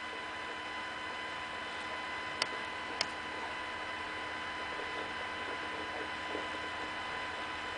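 Steady electrical hum and hiss with faint high steady whines, broken twice a couple of seconds in by sharp clicks about half a second apart.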